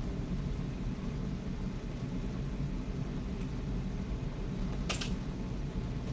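Steady low hum of room noise in an empty room, with one brief sharp noise about five seconds in.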